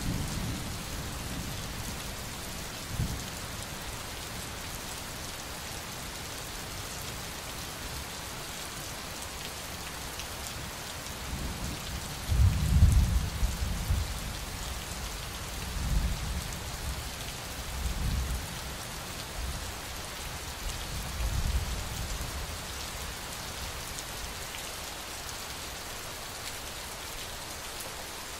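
Steady rain with rolls of thunder: a long rumble about twelve seconds in is the loudest, followed by several shorter, weaker rumbles.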